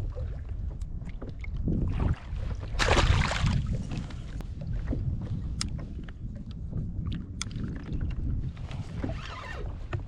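Wind buffeting the microphone and choppy water slapping around a fishing kayak, as a steady low rush. About three seconds in there is a louder burst of rushing noise, and a few sharp clicks come and go.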